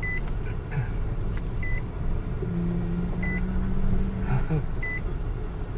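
Inside a small camper van's cab, a steady low rumble of the engine and tyres rolling slowly over gravel. A short electronic warning beep repeats about every one and a half seconds.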